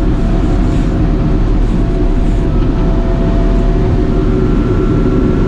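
Feller buncher's diesel engine running steadily under load, with a faint steady whine on top.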